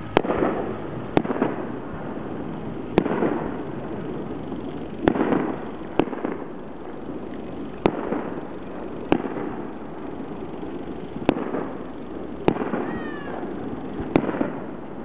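Starmine firework barrage: aerial shells bursting with sharp bangs every one to two seconds, about a dozen in all, each followed by a rolling echo.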